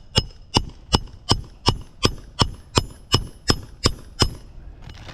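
Hand hammer driving a roofing nail to fasten an asphalt shingle back down: about a dozen sharp, ringing strikes at a steady pace of roughly three a second, stopping near the end.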